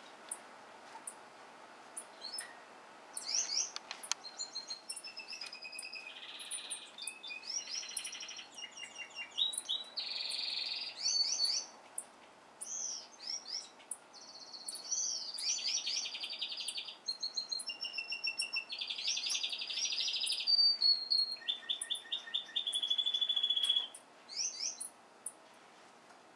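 Songbirds in an aviary singing a long, varied song of chirps, whistled notes and rapid buzzy trills, starting about two seconds in and stopping near the end.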